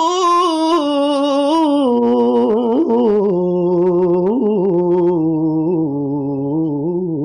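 Unaccompanied voice, most likely a man's, singing a long drawn-out melismatic phrase of an Arabic naat with no recognisable words. The pitch wavers at first, then drops about two seconds in to a lower held line with small ornaments.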